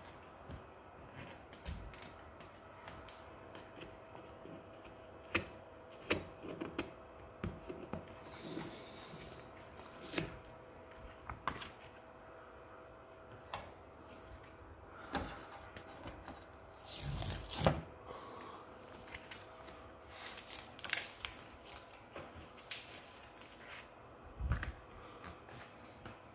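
Packing foam, plastic sheeting and tape being handled and pulled off a large printer: scattered taps, clicks and crinkling rustles, with one longer, louder rustle about two-thirds of the way through.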